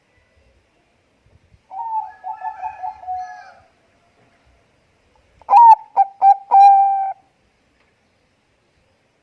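Zebra dove (Bangkok perkutut) cooing twice. First comes a quick rolling trill of notes; a few seconds later, a few sharp clipped notes run into a held coo.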